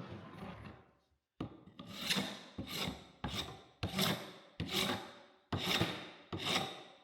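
Paint scraper dragged in repeated strokes across a glued-up wooden blank, scraping off dried glue squeeze-out. After one faint stroke at the start, a regular series of rasping strokes begins about a second and a half in, roughly one every two-thirds of a second.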